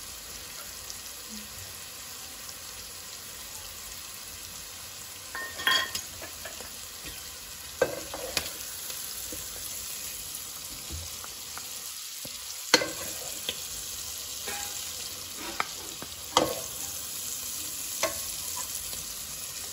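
Prawns sizzling steadily in hot oil in a nonstick kadai. From about five seconds in, a wooden spatula stirs them, scraping and knocking against the pan every second or two.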